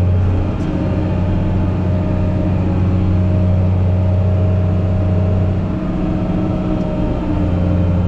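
Fendt Favorit 818 tractor's six-cylinder diesel running steadily under PTO load while it drives the forage wagon's unloading gear. Its low hum eases briefly twice.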